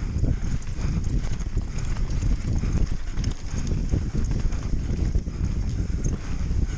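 Mountain bike descending rough ground at speed: a continuous irregular clatter of knocks and rattles from the wheels, chain and frame over bumps, over a low rumble.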